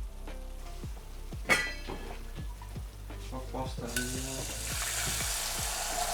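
Food sizzling in a frying pan, a steady hiss that comes in about four seconds in, after a sharp clink of kitchenware about a second and a half in. Soft plucked background music plays under it.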